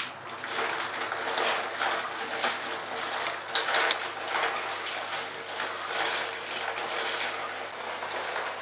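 Thumler's Tumbler Model B rotary tumbler running with a wet load of fired brass cases and ceramic media in water and detergent: a continuous churning, sloshing rattle over a steady motor hum. One sharp click right at the start.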